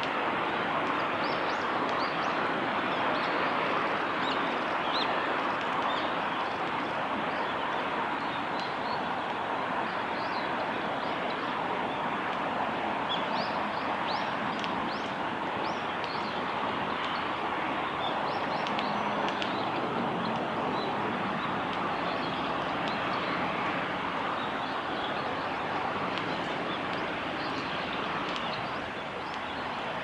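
Steady outdoor background roar, like distant traffic, with brief faint high chirps of small birds scattered through it, most of them around the middle.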